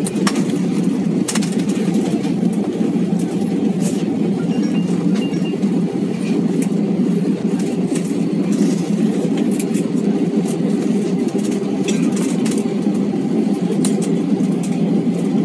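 Airbus A320 cabin noise heard from a passenger seat: the steady rumble of the engines and airframe moving on the ground, with scattered light ticks and rattles.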